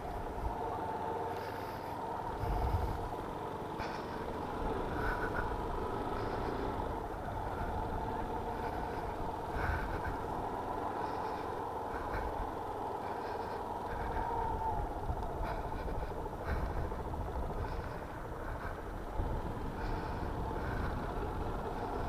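Yamaha Fazer 250's single-cylinder engine running steadily while the motorcycle is ridden slowly, with wind rumbling on the microphone.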